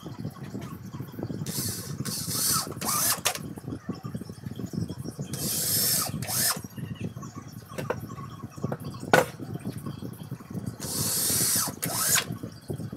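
Homemade grinding machine running with a steady low hum, broken by three bursts of high hissing noise lasting a second or so each, and one sharp click about nine seconds in.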